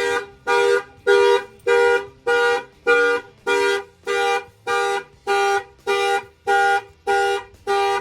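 Clifford 3105 car alarm on a 1992 Ford F-150 going off: a loud, steady horn-like honk repeating about one and a half to two times a second. It stops abruptly at the end.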